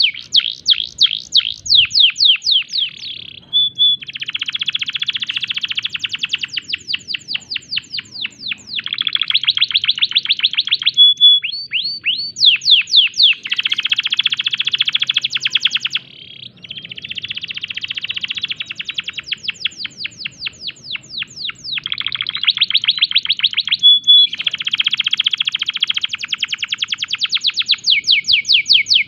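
Male domestic canary singing in breeding condition: a long, unbroken song of rapid runs of downward-sweeping notes alternating with fast buzzy trills and a few short held whistles, pausing only briefly.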